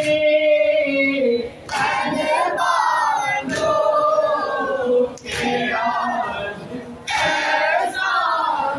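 A group of male voices chanting a noha, a Shia mourning lament, together at a microphone in long, drawn-out phrases of about two seconds each, with short breaks between them.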